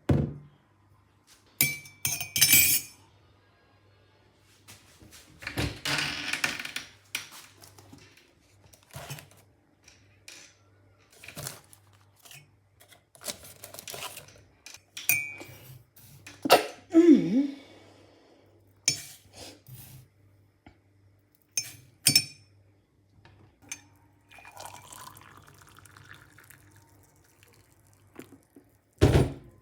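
Cutlery clinking and knocking against a plate while eating: scattered, irregular clinks, a few with a short ring.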